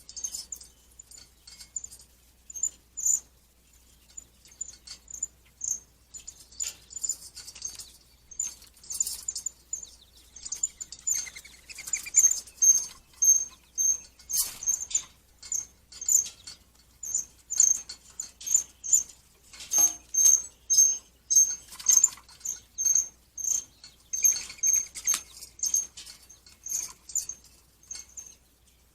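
Woodpecker at a suet feeder making short, sharp, high-pitched ticks one after another, irregularly spaced and coming thicker after the first several seconds.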